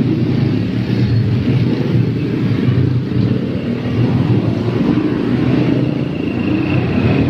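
Tour bus engine running with a loud, steady low rumble.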